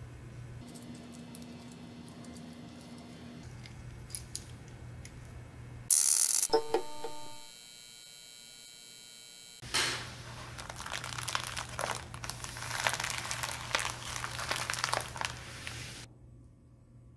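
A metal camera cold-shoe mount adapter is handled with a few faint clicks, then about six seconds in a loud electronic sound effect bursts in with ringing tones and settles into a steady buzz for a few seconds. After that a plastic mailer bag crinkles and rustles as it is handled, stopping shortly before the end.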